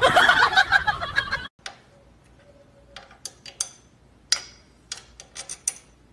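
A loud voice-like sound cuts off abruptly after about a second and a half. Then comes a capuchin monkey's metal hand tool clinking and tapping against engine fittings: about nine short, sharp clicks spread over three seconds, a few with a brief ring.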